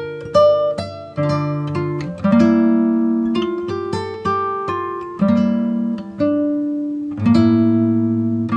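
Background music: an acoustic guitar playing a slow melody, single notes and chords plucked and left to ring.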